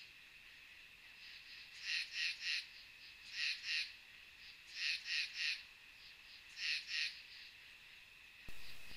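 A frog calling in short groups of two or three quick notes, four times, over a steady high-pitched night chorus. A burst of hiss starts just before the end.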